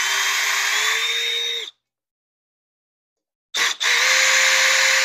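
Cordless drill-driver with a 3 mm hex bit backing out machine screws from a drag-chain bracket. The motor runs for under two seconds, its whine rising slightly in pitch. After a pause it gives a short blip, then runs again for about two seconds.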